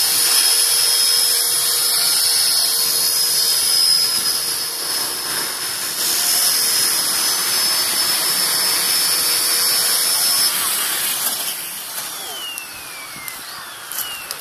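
Electric 450-class RC helicopter (ALZRC 450) flying: a steady high-pitched whine from its motor and gears over the rush of the rotor blades. In the last couple of seconds the sound gets quieter and the whine slides down in pitch as the rotor spools down on the ground after landing.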